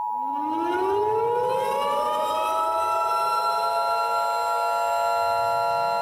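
EAS two-tone attention signal, a steady pair of tones near 1 kHz, under a civil defense siren that winds up in pitch over about the first two seconds and then holds a steady wail.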